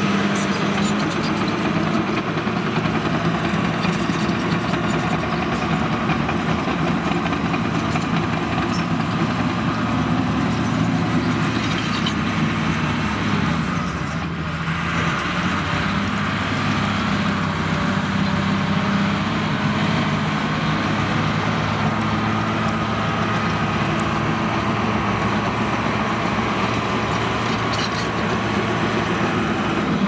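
Caterpillar D5G crawler dozer's diesel engine running steadily under load as the dozer pushes and grades dirt with its blade; the sound drops briefly about halfway through.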